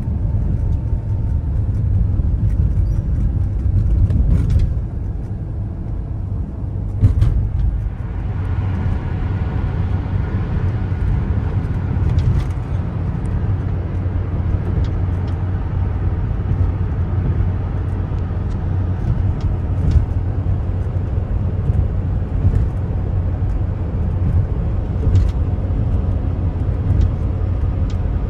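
Inside the cabin of a Peugeot 407 on a highway: a steady low rumble of engine and tyre noise. About seven seconds in there is a brief knock, and from about eight seconds the road noise turns louder and hissier as the car gathers speed, then holds steady.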